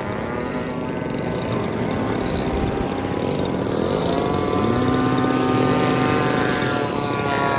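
Engines of several radio-controlled model airplanes buzzing in flight, their pitches drifting up and down as they pass; a lower-pitched engine comes in about halfway through.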